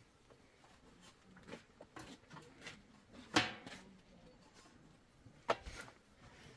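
A few scattered sharp knocks and clicks over faint background, the loudest about halfway through and another near the end.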